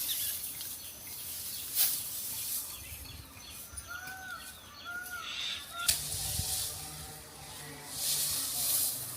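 Dry wheat stalks rustling and crackling as the crop is harvested, with a couple of sharp snaps and a louder burst of rustling near the end. A bird chirps a few times in the middle.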